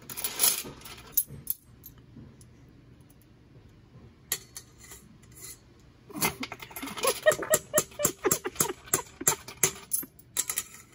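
Utensil clinking and scraping against a container as thick almond butter is scooped out. There is a quick run of clinks at the start and a lull with a few ticks, then a dense run of rapid clinks and scrapes from about six seconds in.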